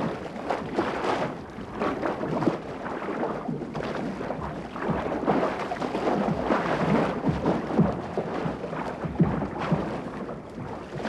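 A 10-foot reef shark rolling and thrashing at the surface beside a boat as it fights a steel bait wire: continuous heavy splashing and churning water, with irregular thumping splashes.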